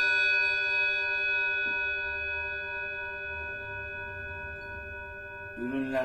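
Bell-chime car horn ringing out after being sounded: a cluster of steady, bell-like tones fading away slowly, with the deepest tone cutting off right at the start.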